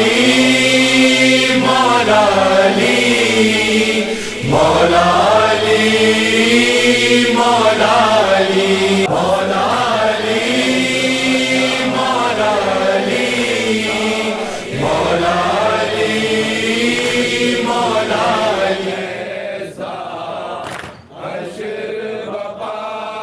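Chanted mourning lament sung in long, drawn-out phrases with slow bends in pitch, each phrase lasting about four to five seconds. It drops lower and thinner about nineteen seconds in.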